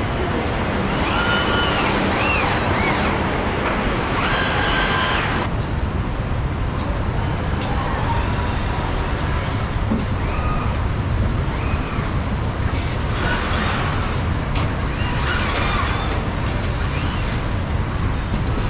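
Car body-shop assembly line: a steady machine rumble, with industrial robot arms' motors whining up and down in pitch as they move, and hisses of air, loudest in the first few seconds.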